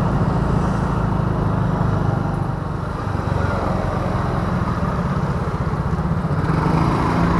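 Small automatic motor scooter's engine running steadily while it is being ridden, with road noise.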